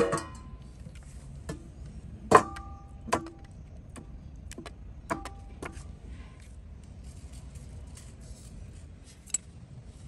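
Scattered clinks and knocks of metal utensils and steel vessels during food preparation, the loudest ones ringing briefly. Under them runs a low steady rumble of street background.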